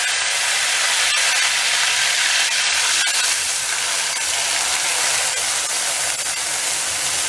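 Wet ground masala paste poured into hot oil in an aluminium kadai, sizzling with a steady hiss and a few faint crackles.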